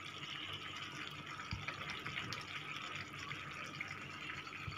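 Stew simmering in a pot on a gas stove: a steady hiss with faint bubbling, and one soft knock about a second and a half in.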